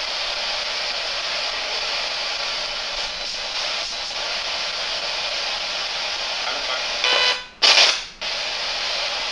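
A steady static hiss. About seven seconds in comes a short, loud, garbled burst that cuts in and out, captioned as a voice answering "I'm coming".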